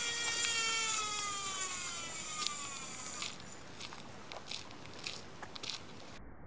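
Baitcasting reel's spool spinning freely as line pays out after a cast: a whine that falls steadily in pitch as the spool slows over about three seconds. After that come scattered sharp clicks from the reel.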